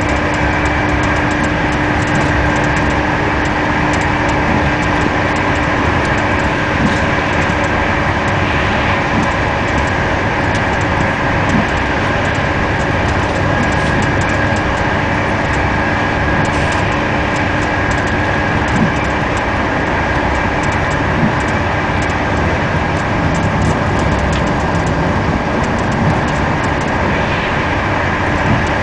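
Running noise of a moving passenger train heard from inside the carriage: a steady rumble with a few constant hums and occasional light clicks.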